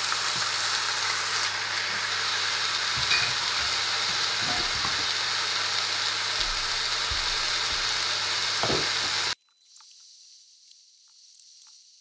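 Pork steaks sizzling loudly in hot oil in a frying pan, with a few small knocks as the meat is handled. About nine seconds in, the loud sizzle cuts off suddenly and gives way to a much fainter sizzle with small crackles.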